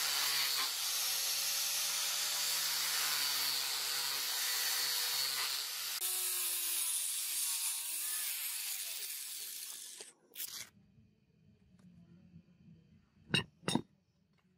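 Angle grinder with an abrasive disc grinding the rusty steel blade of a butcher's chopper: a steady hissing grind over the motor's hum, which changes about six seconds in and dies away about ten seconds in. Two sharp clicks come near the end.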